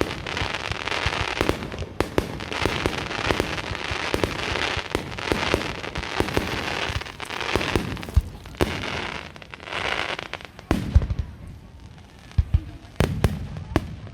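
Fireworks display: a dense run of sharp cracks and bangs over continuous crackling, thinning out after about eleven seconds, with a few deep booms near the end.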